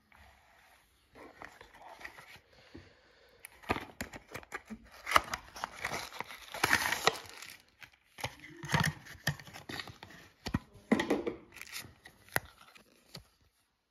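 Hands opening a small cardboard box and handling the plastic pouch inside: crinkling of plastic and card with many sharp clicks and rustles, loudest in the middle.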